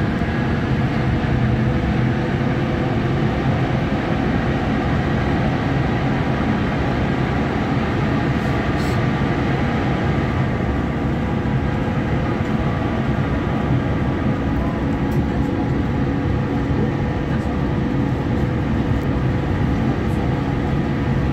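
Lille metro VAL train running at steady speed, heard from inside the car: rubber-tyre rolling noise and a low rumble, with faint steady motor tones over it.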